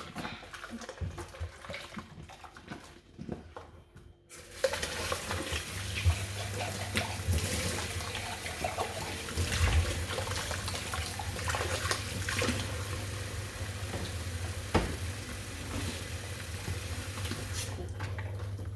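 Kitchen sink tap running steadily, turned on about four seconds in and shut off near the end, with a few light knocks and clatter over the water.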